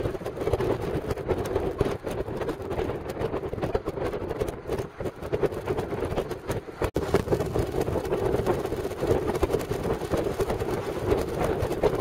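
Steady road and wind noise of a moving car heard from inside its cabin, a continuous rushing drone.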